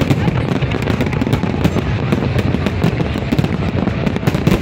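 Large aerial fireworks display: a dense, unbroken barrage of shell bursts and crackling, many reports a second.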